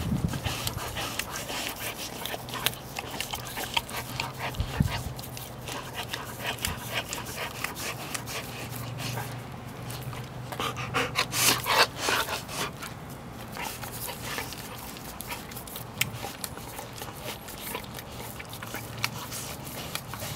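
A husky licking an Orapup tongue cleaner: a run of irregular wet licks and tongue smacks against the bristled pad, busiest and loudest about eleven to twelve seconds in.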